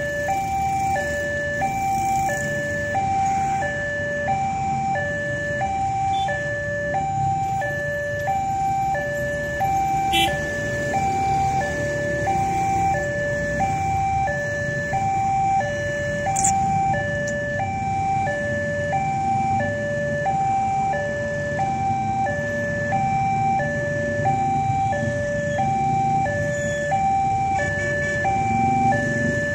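Railway level-crossing alarm: an electronic two-tone warning alternating high and low, about one pair a second, steady throughout, signalling that a train is approaching and the crossing is closed. Under it is a low rumble of motorcycle engines idling in the waiting queue.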